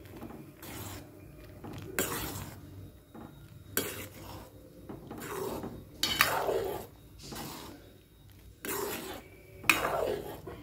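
Steel ladle stirring in a steel pot of milky vermicelli payasam, scraping and clinking against the pot's sides and bottom in repeated strokes about once every second or so, as ground chana dal is mixed in.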